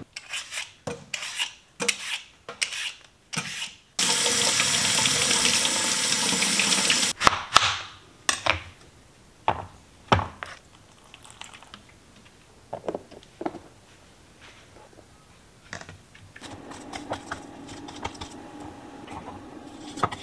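Kitchen work sounds: a run of clicks and knocks, then about three seconds of tap water running loudly into a sink, more scattered clatter, and a steady machine hum that starts near the end.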